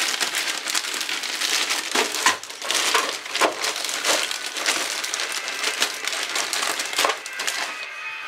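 Plastic bag of ice cubes crinkling and rustling as cubes are pulled out by hand, with irregular sharp cracks and clicks of the ice.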